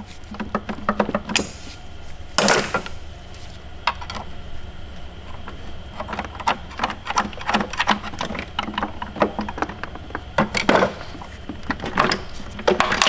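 Scattered metallic clicks and clinks of tools and engine parts being handled as the oil pump drive shaft of an Audi 3.0T supercharged V6 is worked loose. A few sharper knocks come about two seconds in and near the end, over a steady low hum.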